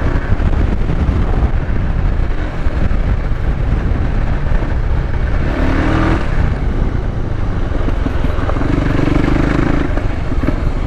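Voge 300 Rally's single-cylinder engine running while riding along, with steady wind noise. The engine note strengthens briefly about six seconds in and again shortly before the end.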